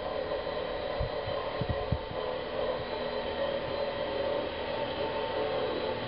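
Steady mechanical hum of heating plant-room machinery running, with several held tones over an even noise, and a few soft low thumps in the first two seconds.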